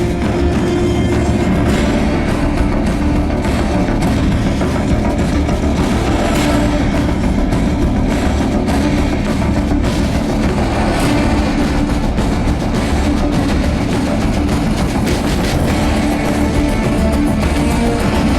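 A drum troupe playing drums together over a loud rock backing track with guitar, the music steady and continuous.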